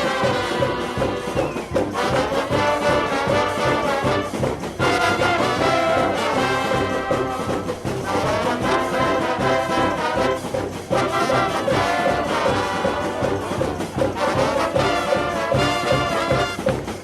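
Brass-led music with trombones and trumpets over a steady beat, playing without a break.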